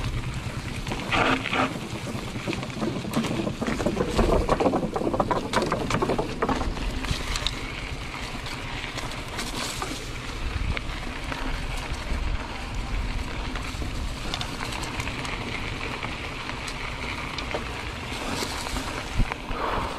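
Mountain bike being ridden along a rough trail: wind rumbling on the microphone, with tyre noise and a stretch of rattling from about three to seven seconds in.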